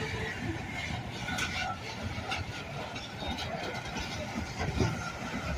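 Diesel locomotive running with a steady low rumble and a few faint clanks.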